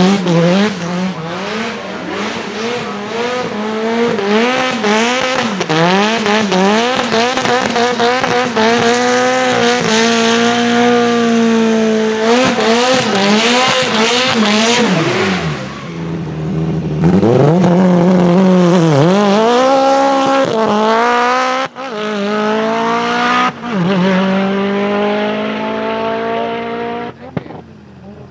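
A racing car's engine revving up and falling back again and again under hard driving, with tyre squeal at times. The sound breaks off and changes abruptly several times.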